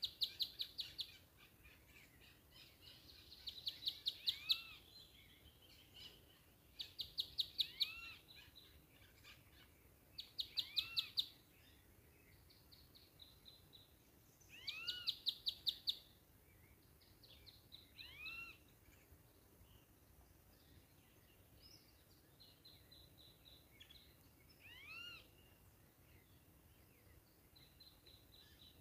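Birds singing: about a second of rapid, high ticking trill every three to four seconds, loudest in the first half, with short arched notes that rise and fall in between.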